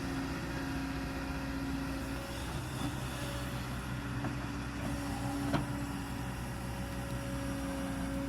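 Kobelco 220 excavator's diesel engine running steadily under working load, its tone shifting slightly a couple of seconds in as the hydraulics are worked. A single sharp knock comes a little past halfway.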